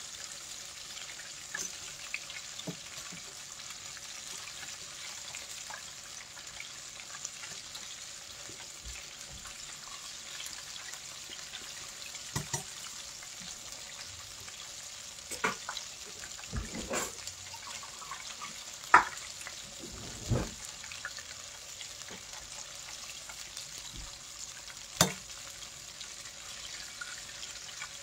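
Chicken pieces deep-frying in a stainless stockpot of hot oil, a steady sizzling bubble. In the second half come a few sharp clinks of a metal slotted spoon against the pot as the pieces are turned.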